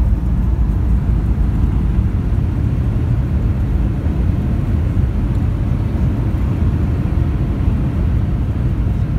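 Steady low rumble inside a jet airliner's cabin during the landing roll on the runway.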